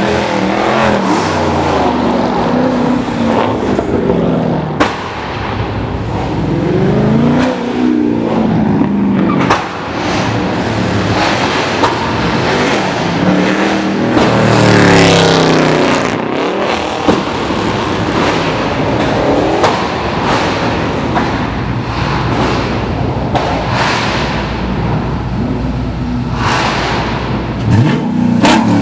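Several muscle cars driving past one after another, each engine revving up and falling away in turn, with a few sharp pops.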